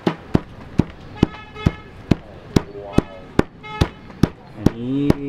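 A hammer pounding grilled meat on a wooden chopping block: a steady run of sharp blows, about two and a half a second, tenderising the meat for pounded-meat jerky (jin tup).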